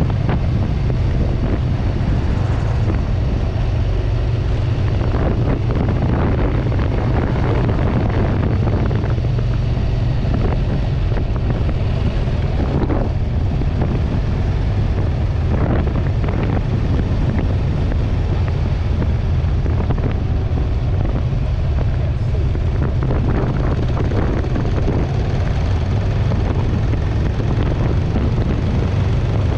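Motorcycle riding along steadily: wind buffeting the handlebar-mounted action camera's microphone over the drone of a 1994 Kawasaki Vulcan 500's parallel-twin engine.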